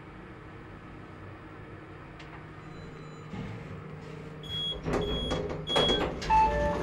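Passenger lift car running with a steady low hum, then arriving: three short high beeps, with the knocks and rattle of the automatic sliding doors starting to open, and a short lower tone near the end.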